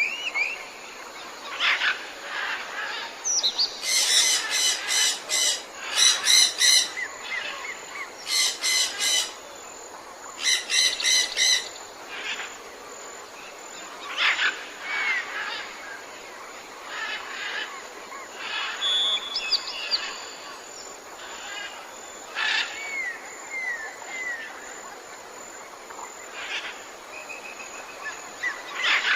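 Jungle birds calling over a steady background hiss. There are four loud bursts of fast, buzzy trills between about four and twelve seconds in, with scattered chirps and short whistles throughout.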